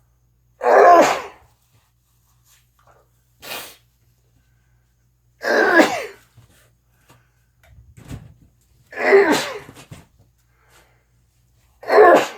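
A person sneezing again and again: four loud sneezes about three seconds apart, with fainter sounds between them.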